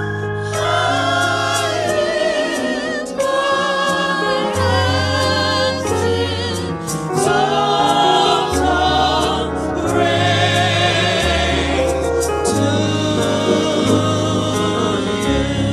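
Small gospel vocal ensemble of men and women singing together into handheld microphones, with vibrato on the held notes, over an accompaniment of sustained bass notes that change every second or two.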